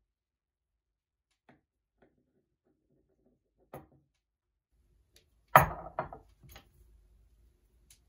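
A light knock, then a louder one, then a sharp bang followed closely by a second, smaller bang and a few faint clatters, as of something wooden or metal being shut or set down hard.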